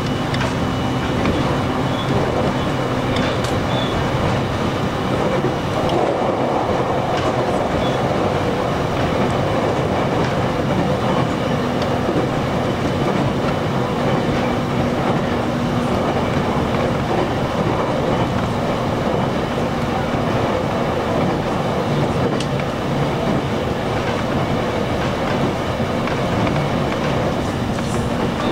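Electric commuter train running along the line, heard from inside the carriage: a steady rumble of wheels on rails with a motor hum that shifts pitch partway through, and a few clicks over rail joints.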